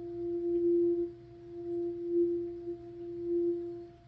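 Crystal quartz singing bowl sung by rubbing a suede mallet around its rim. It gives one steady ringing tone with a fainter higher overtone, swelling and fading about every second or so as the mallet circles.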